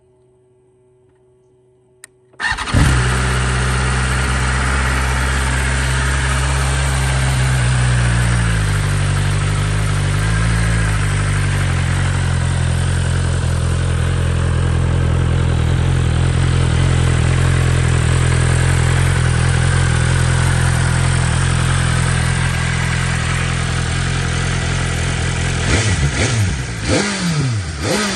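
BMW S1000RR's inline-four engine through its stock exhaust, starting about two and a half seconds in and settling into a steady idle, the pitch wavering briefly around ten seconds. Near the end it is given several quick throttle blips.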